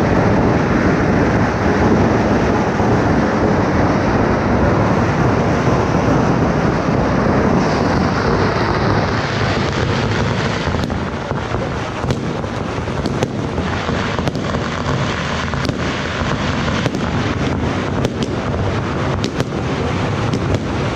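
Consumer fireworks going off: a dense, continuous din at first, then from about halfway many separate sharp bangs and crackles from aerial fireworks bursting overhead.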